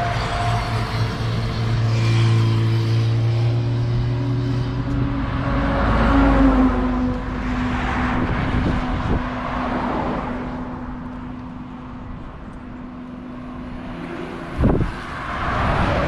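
Road traffic passing close by: a lorry's engine humming as it goes past, then cars driving by, each swelling and fading with tyre noise. A single brief thump near the end.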